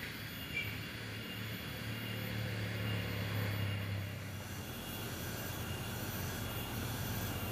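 Engine of a light pickup truck on the steep bend: a steady low hum that grows louder about two seconds in and holds.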